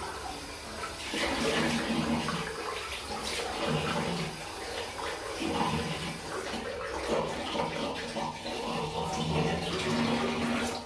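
Bathroom sink tap running while water is cupped and splashed onto the lips and mouth, rinsing off a lip scrub.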